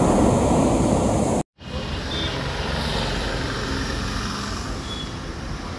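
Ocean surf breaking on a beach, a steady rushing noise, cut off sharply about a second and a half in; then quieter steady outdoor noise.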